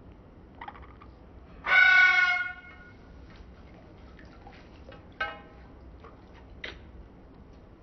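A pet bird gives a loud, pitched call lasting about a second, then a shorter call about three seconds later, with brief sharp sneezes before and after.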